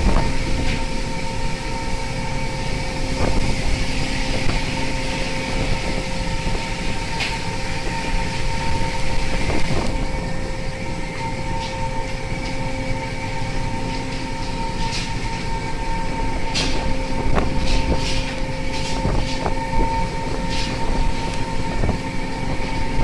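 Steady mechanical drone of a fishing boat's engine and deck machinery running, with scattered sharp clicks and knocks, more of them in the second half.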